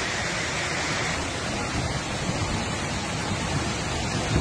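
Floodwater rushing fast down a street, a steady loud rush of water, with a low thump near the end.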